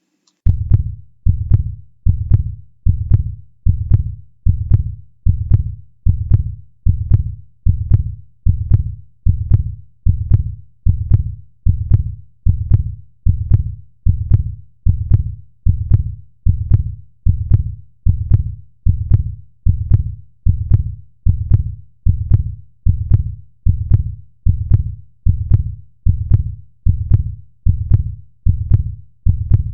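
Recorded heartbeat sound played on a loop: deep, low thumps at a steady pace of about one and a half beats a second.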